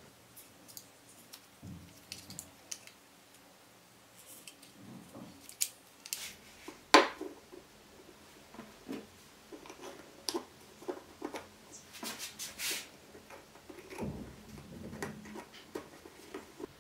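Light clicks, taps and rustles of small plywood rings being handled and fitted together on a wooden workbench, with one sharper click about seven seconds in.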